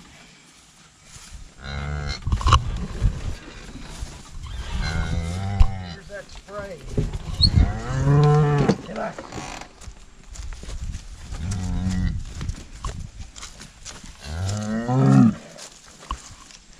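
Cattle mooing: about five long, low calls a few seconds apart.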